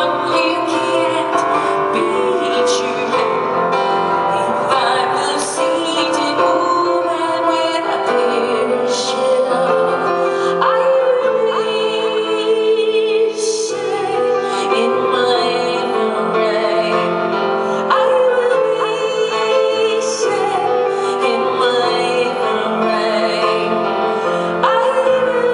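Live music: a woman singing over piano accompaniment, with long held and bending vocal notes.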